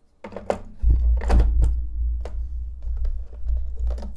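Sharp plastic clicks and knocks as parts are lifted out of a moulded hard-plastic tool case, over a low rumble of handling noise from about a second in.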